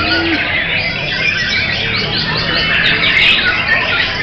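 White-rumped shamas (murai batu) singing in a contest, several songs overlapping in a dense, continuous run of quick whistles and chirps.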